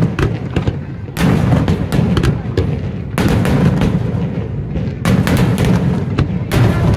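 Aerial fireworks shells bursting: four heavy booms about one and a half to two seconds apart, with smaller cracks between them and a deep rumble that carries on throughout.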